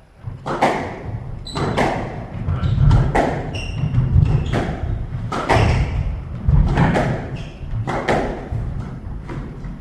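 A squash rally: the ball is struck by rackets and hits the walls in a run of sharp thuds, about one a second, in an echoing court. Short high squeaks, likely shoes on the wooden floor, come between some of the strikes.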